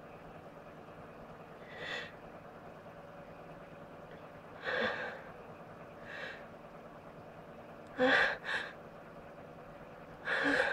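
A person's short, breathy gasps and sniffs, about six in all, with a quick pair about eight seconds in and another strong one near the end: the catching breaths of someone on the verge of a sneeze.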